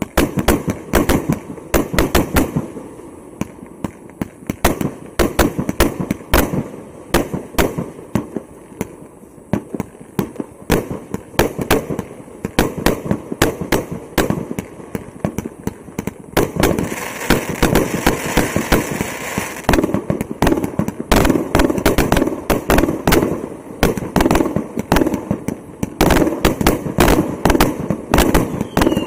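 A 1.2-inch, 100-shot fireworks cake firing in rapid succession: a steady string of launch thumps and aerial bursts, about two or three shots a second.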